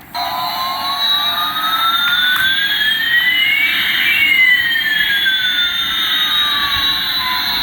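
Electronic jet-engine sound effect: a steady thin hiss with two whining tones, one rising and one falling, that cross about halfway through and then part again.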